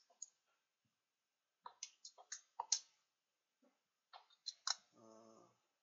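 Irregular sharp clicks of keys being pressed while a calculation is keyed in, in small quick groups. A brief low hum near the end.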